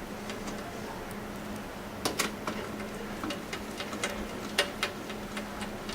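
Screws being driven with a hand screwdriver to fix a DVD drive into a metal PC case bay: a run of small irregular metallic clicks and ticks, loudest about two seconds in and again about four and a half seconds in, over a steady low hum.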